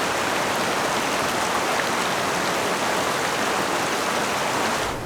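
Canyon stream rushing over rocks: a steady, even rush of water. It drops abruptly to a quieter level near the end.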